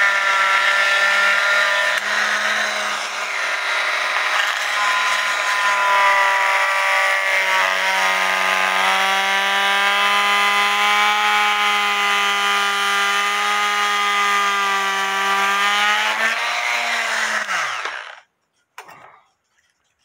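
Handheld electric cutting tool running steadily as its blade cuts through the glued-in bellows and wood of a cuckoo clock case, its pitch shifting a little under load. About seventeen seconds in it is switched off and winds down to a stop, followed by a brief light rattle.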